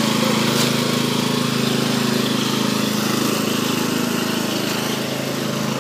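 Riding lawn tractor's engine running steadily as the tractor tows a lawn roller fitted with a sod cutter across turf.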